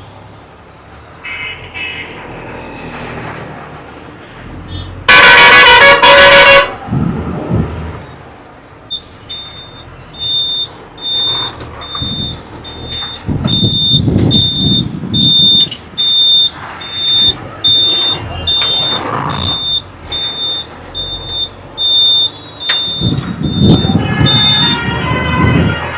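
A loud vehicle horn blast lasting about a second and a half. Then a truck's reversing alarm beeps evenly about once a second while the Tata truck's engine revs in repeated surges as it backs up to complete the turn.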